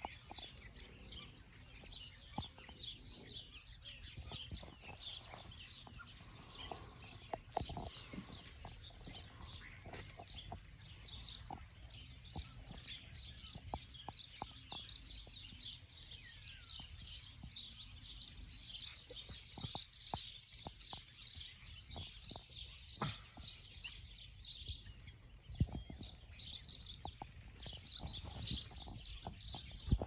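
A flock of small birds, European starlings among them, chirping and chattering from overhead wires: many short, overlapping high calls and whistles with scattered clicks, over a faint low rumble.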